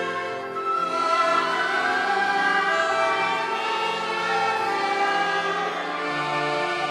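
Soundtrack music: a choir singing with orchestra in slow, long-held chords.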